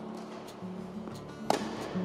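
Background guitar music with a steady melody, and one sharp crack of a tennis racket striking the ball on a two-handed backhand about one and a half seconds in, with a few fainter taps before it.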